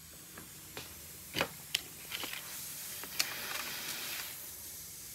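A few faint clicks and a brief soft rattling hiss as a tape measure is handled and its blade pulled out against the side of a plastic tub.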